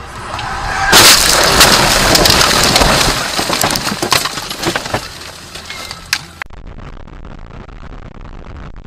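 Car crash heard from inside the car: a loud impact about a second in, then several seconds of crashing, cracking and scraping as the car ploughs into bushes and its windshield cracks. About six and a half seconds in it cuts abruptly to steady, quieter road noise of a moving car.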